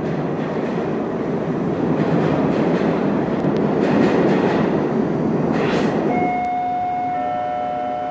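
A train passing with a steady rumble that swells and then eases. About six seconds in, several steady high squealing tones set in one after another.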